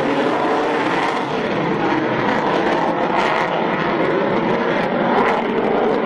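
Loud, steady jet noise from the twin turbofan engines of a Lockheed Martin F-22 Raptor in flight.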